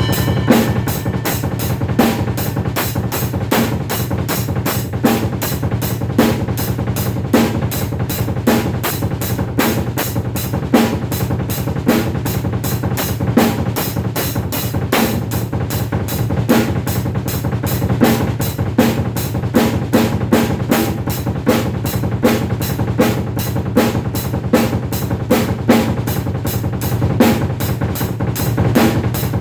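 Drum kit played in a steady, fast groove: a dense run of even strokes with bass drum and snare accents falling at regular intervals.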